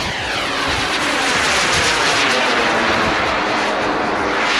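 A radio-controlled model airplane flying past close by, its engine loud, with the engine note sliding down in pitch as it goes past.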